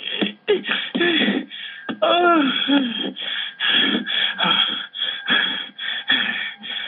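Rhythmic heavy panting and grunting, about three breaths a second, with a drawn-out moan about two seconds in: the vocal sounds of a couple having sex.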